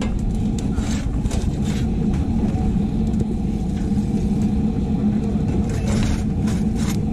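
Steady low mechanical rumble with a constant hum, with a few light clicks and rattles of a wire grill basket being handled.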